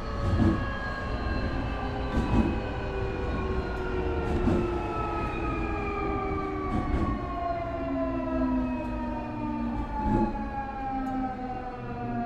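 Nankai 8300 series train's Hitachi two-level IGBT VVVF inverter and Toyo Denki totally enclosed induction traction motors whining in several tones that fall steadily in pitch as the train slows, over a steady running rumble with occasional rail-joint clacks.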